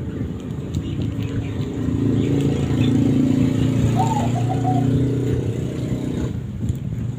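A motor vehicle engine running, growing louder in the middle and easing off about six seconds in, with a short bird call about four seconds in.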